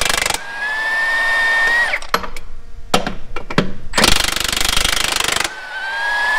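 Milwaukee M18 FUEL 2869-20 cordless 1-inch impact wrench taking semi-truck lug nuts off. It goes twice: rapid hammering breaks a nut loose, then the tool spins free with a slightly rising whine as the nut runs off, and stops. A few sharp knocks come between the two runs.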